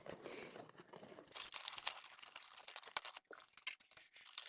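Faint crinkling and rustling of paper packaging as a gift box is handled and opened, with scattered small clicks.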